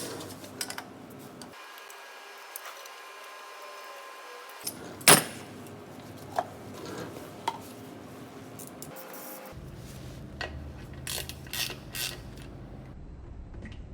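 Scattered metallic clicks and knocks of tools and parts being handled, the loudest about five seconds in and a quick cluster near the end. A faint steady hum sits under the first few seconds.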